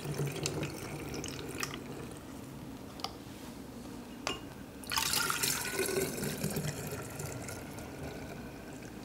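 Kombucha poured from a large glass jar through a funnel into a glass swing-top bottle, liquid trickling and splashing as the bottle fills. There are two short clicks near the middle, and the pour gets louder about five seconds in.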